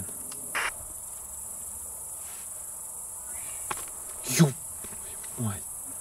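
Crickets chirring steadily in a high, even band. A few brief sounds break through, the loudest about four and a half seconds in.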